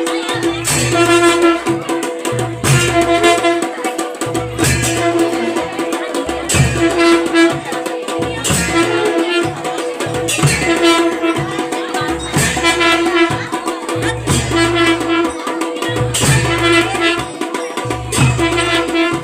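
Music with drums and percussion over a held melodic tone, in a phrase that repeats about every two seconds.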